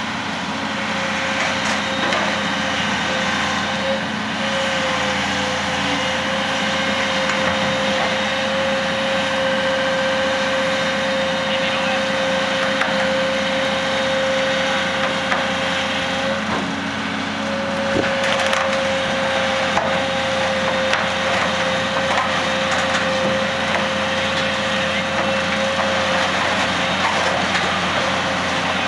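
Heavy diesel machinery running with a steady high whine, held for most of the stretch, that breaks off briefly about two-thirds of the way through, over dense crackling and creaking noise.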